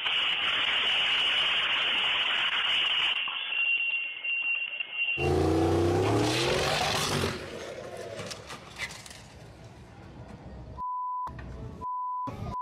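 A modified classic Mini drag car's engine revs hard and rises in pitch as it launches, loud for about two seconds from about five seconds in, then fades as it pulls away. Before that there is a steady high-pitched tone over hiss. Near the end a pure beep tone sounds three times.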